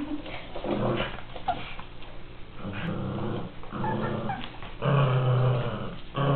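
Miniature pinscher growling as it tugs at a toy, in a string of growls that get longer and louder, the longest near the end.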